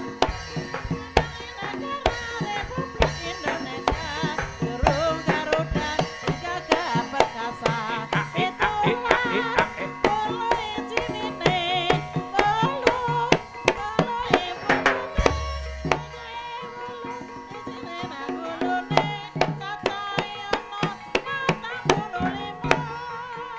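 Live ebeg accompaniment: Banyumasan gamelan music with quick, busy hand-drum strokes over ringing metal percussion tones and a wavering melody line in the middle. About fifteen seconds in, a deep low boom sounds, and the playing thins out afterwards.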